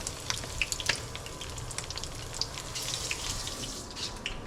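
Hush puppies frying in hot grease: a steady sizzle with many small crackles and pops.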